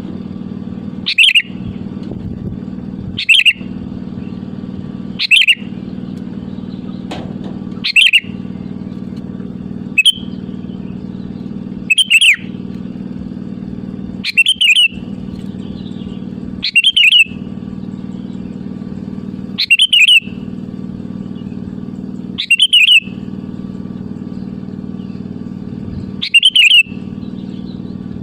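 Sooty-headed bulbul (kutilang) calling over and over, a short bright phrase every two to three seconds, used as a lure call to draw a rival into answering. A steady low hum runs underneath.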